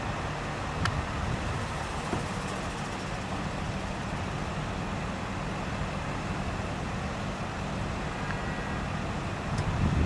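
Idling vehicle engines in stopped traffic, a steady low hum.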